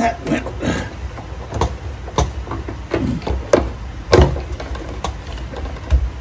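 A new plastic fuel pump module being pressed and worked down into a Jeep Wrangler TJ fuel tank opening against its rubber seal and springs: irregular clicks, knocks and short creaks of plastic. A low steady hum runs underneath.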